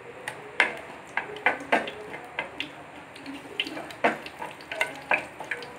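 Mustard and cumin seeds with slit green chillies spluttering in hot oil in a frying pan. Irregular sharp crackles and pops sound over a low sizzle, the tempering stage, where the seeds burst in oil that is hot enough.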